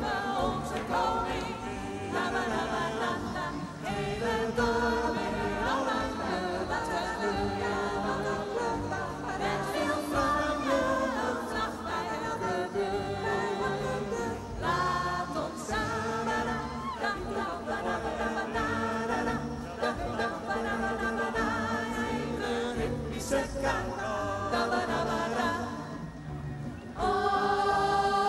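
A choir singing over backing music with a steady beat. Near the end the music changes to long held chords.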